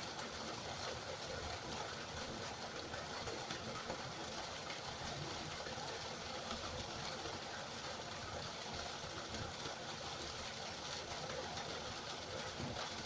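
River water flowing, a steady, even rushing with no breaks.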